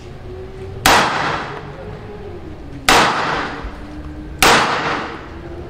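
Three pistol shots, about two seconds and then a second and a half apart, each a sharp crack with a short ringing echo after it.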